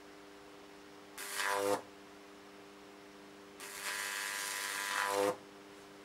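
High-voltage arc from a 2 kV microwave oven transformer climbing a wire Jacob's ladder and buzzing twice: a short burst about a second in, then a longer one of about a second and a half from the middle. Each grows louder and cuts off suddenly as the arc breaks at the top. A steady hum runs underneath.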